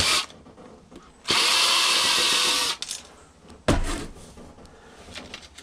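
Screw gun (power drill/driver) spinning out screws from a karaoke machine's case: a brief burst, then a run of about a second and a half, followed by a single loud clunk and a few small clicks.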